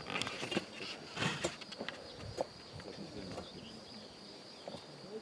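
Scattered knocks and scrapes of hand tools digging and working around a wooden fence post, thicker in the first second and a half and sparser after.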